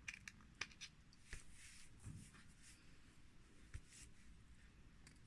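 Near silence with faint rustling and a few light clicks as small makeup pots and packaging are handled.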